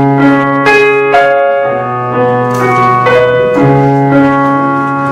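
Keyboard playing slow, sustained worship chords with a held bass line, the chords changing every second or two.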